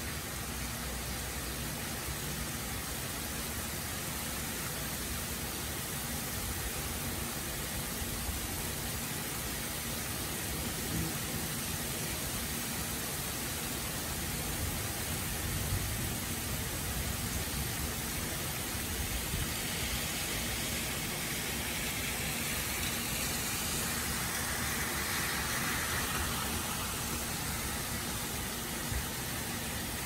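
Heavy rain falling steadily on pavement and grass, an even hiss that swells somewhat louder and brighter for several seconds past the middle.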